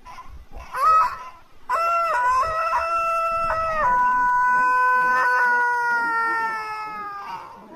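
Silkie rooster crowing: a short note about a second in, then one long crow in several steps, its last note held for over three seconds and slowly falling in pitch.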